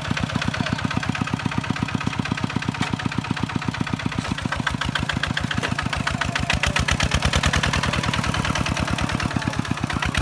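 Kubota walking tractor's single-cylinder diesel engine chugging with rapid, even pulses as it pulls a disc plough through a flooded paddy. It gets louder for a couple of seconds about two-thirds of the way through.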